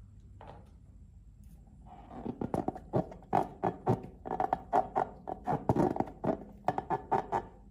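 A fast, irregular run of short squelchy clicks and smacks, about four a second, starting about two seconds in: slime being squeezed and worked by hand.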